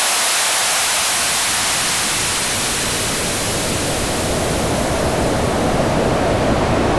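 Synthesised white noise split into two EQ'd bands and crossfaded: the high band, above about 680 Hz, fades down while the low band swells up. A bright hiss slowly turns into a deeper rushing noise, the basic sweep behind a hand-made ocean-surf effect.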